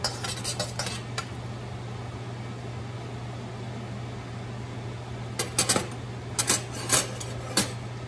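Metal spoon and ladle clinking and scraping against a stainless steel wok while butter is stirred, a few sharp clicks near the start and a second cluster about five to seven and a half seconds in. A steady low hum runs underneath.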